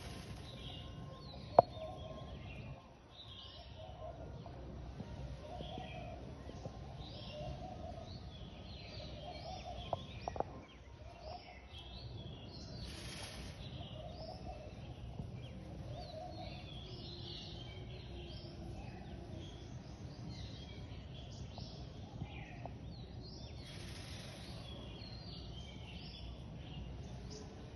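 Several birds chirping and calling over a steady background hum, with a lower call repeating about once a second. A sharp click sounds about one and a half seconds in, and a few more around ten seconds.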